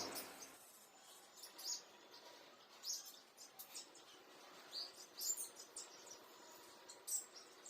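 Faint chirping of small birds: a handful of short, high calls scattered over several seconds.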